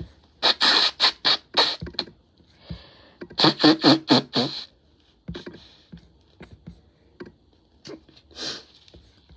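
A congested, snotty nose being blown during an illness: two rapid series of short, wet blows, the first about half a second in and the second around three and a half seconds in. Smaller clicks and a short burst follow near the end.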